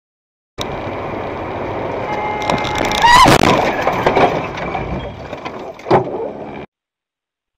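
Dashcam audio of a car collision. Road noise starts a moment in, a loud crash with a brief rising squeal comes about three seconds in, and a second sharp knock follows near six seconds before the sound cuts off abruptly.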